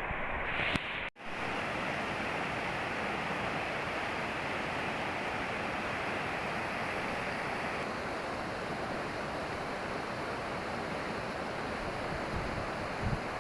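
Steady rush of flowing river water, broken by a momentary dropout about a second in.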